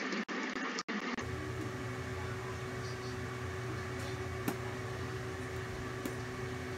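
Steady mechanical hum with a constant low tone. The sound cuts out for an instant twice in the first second.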